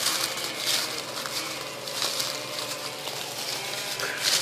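Dry fallen leaves rustling and crunching underfoot in irregular bursts.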